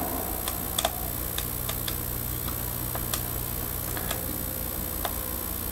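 A handful of faint, irregularly spaced light ticks over a steady low hum.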